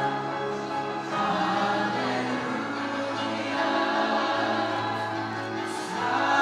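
A man and three young women singing a slow song together in harmony into microphones, holding long notes and changing notes about a second in and again near the end.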